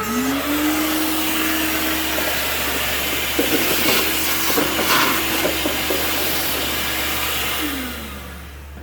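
Power drill spinning up and running steadily with a strong hiss while enlarging rivet holes. Scratchy chatter comes in the middle as the bit cuts, and the motor winds down near the end.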